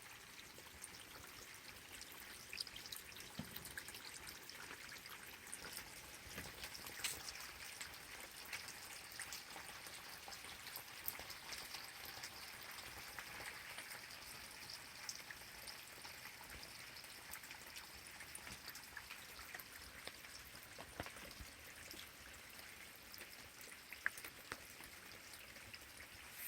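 Faint trickle of shallow runoff water flowing under mesh erosion-control blankets: a soft, steady watery hiss with scattered small ticks and drips.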